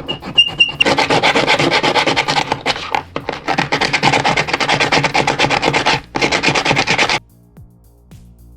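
Laser-cut wooden parts rubbing and rasping against each other in a fast, dense run of strokes for about six seconds, with a brief break near the end, then stopping abruptly.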